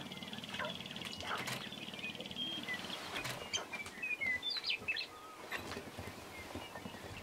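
Sharp-tailed grouse displaying on a dancing ground: a fast, buzzy rattle in the first second, then scattered short chirps, clucks and clicks.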